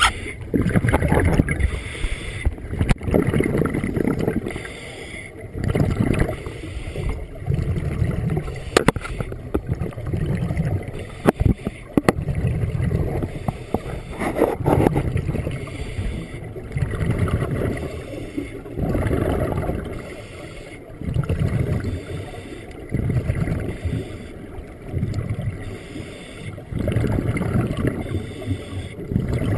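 Scuba regulator breathing heard underwater: rhythmic swells of hissing and bubbling every couple of seconds as the diver inhales and exhales, with a few sharp clicks between them.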